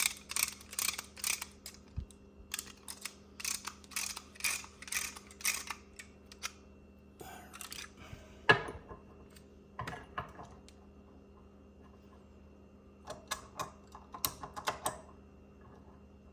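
Ratcheting brake caliper press clicking as its handle is worked through the ratchet pawl, about two clicks a second, then a single loud metal clunk as the tool is handled, and a few more bursts of clicking near the end.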